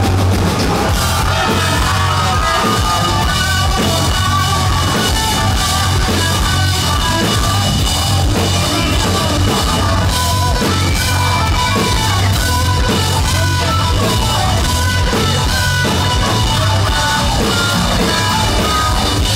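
Live rock band playing loud: distorted electric guitar, bass guitar and a drum kit, the song stopping abruptly at the very end.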